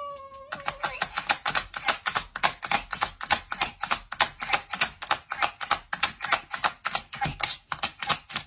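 A dog gives a short whine that falls in pitch, then mashes the 'treat' button on its talking-button soundboard over and over. The button clicks rapidly, about five presses a second.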